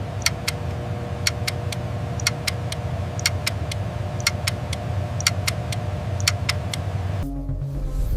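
Steady machine hum with a low rumble and irregular sharp clicks, about two to three a second; the sound changes about seven seconds in.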